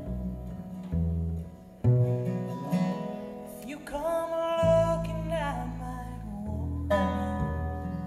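Acoustic string trio playing live: acoustic guitar, resonator guitar and plucked upright bass, with a woman singing a phrase about halfway through.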